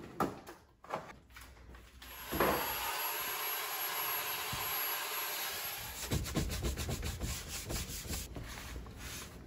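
A Dyson cordless handheld vacuum runs steadily with a high whine for about four seconds, starting about two seconds in, cleaning a bare wooden cabinet shelf. It then gives way to quick, repeated rubbing strokes of a sponge scrubbing the shelf. Before the vacuum starts there are a few light clicks of things being handled.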